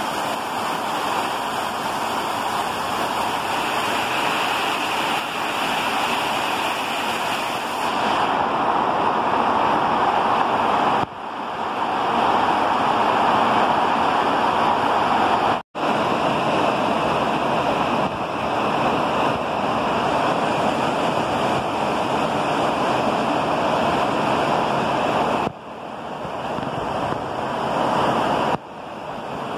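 Heavy tropical rain pouring steadily onto trees, grass and a flooded yard, a dense even hiss. It dips and swells back a few times, with one split-second dropout to silence about sixteen seconds in.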